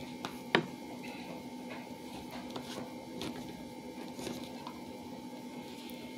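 Plastic screw cap being twisted off a tall water-filled toy tube. One sharp click comes about half a second in, then faint scattered clicks and rubs of the threads over a steady faint hum.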